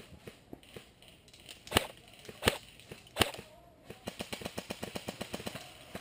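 Three sharp airsoft gun shots about three-quarters of a second apart, then a fast string of fainter cracks at about ten a second, like a full-auto airsoft burst.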